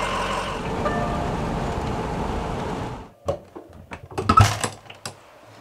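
Steady road noise of a pickup truck driving on a dirt road, heard from inside the cab, cutting off suddenly about three seconds in. Scattered knocks and clatter follow, the loudest about a second later.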